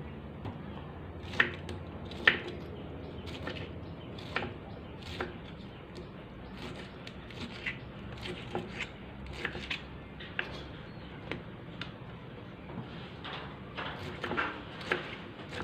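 Kitchen knife cutting pineapple into chunks on a wooden chopping board: irregular knocks of the blade against the board, about one every second, with softer cutting sounds between.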